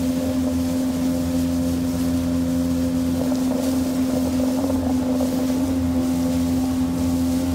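Outboard motor running at a steady, unchanging speed, with the boat underway.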